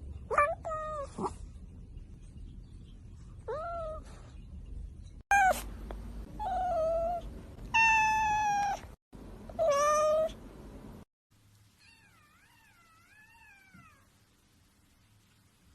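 Domestic cats meowing: about seven separate meows, some short and rising, others long and drawn out. The last one, a little past the halfway point, is faint and wavers up and down in pitch.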